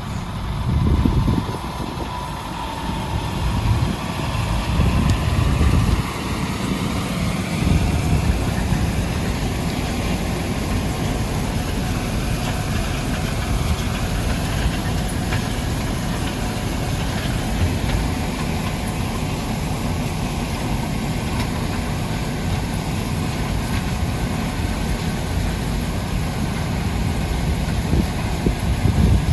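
Diesel engine of heavy farm machinery running steadily, with a continuous mechanical drone and a few louder low rumbles in the first eight seconds and again near the end.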